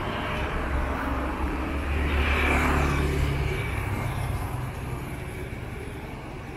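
A motor vehicle passing on the street: a low engine hum and tyre noise swell about two seconds in, then fade away.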